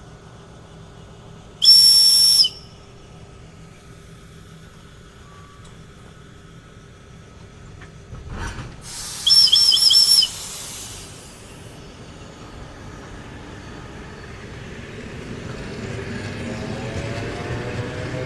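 A train's high-pitched air whistle sounds twice: a short steady blast about two seconds in, and a second, wavering blast near the middle, just after a sharp thump. Toward the end a train's rumble and a rising whine build up as it approaches.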